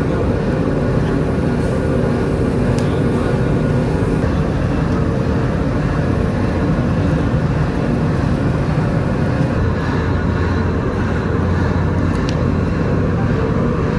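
Steady, loud drone of industrial machinery running in a brass recycling plant, with a low hum that grows stronger about ten seconds in and a couple of faint ticks.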